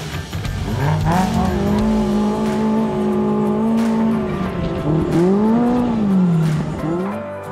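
Polaris RZR Pro R UTV's four-cylinder engine revving under load as it climbs over rocks. The revs climb about a second in and hold high, drop briefly near five seconds, then rise and fall again twice.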